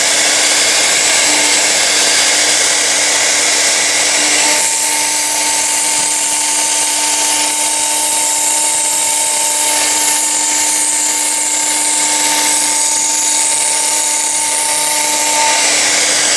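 Blue Elephant 1325 CNC machine cutting acrylic: a loud, steady machine noise with a constant whine. A second, higher whine joins about four and a half seconds in and drops out shortly before the end.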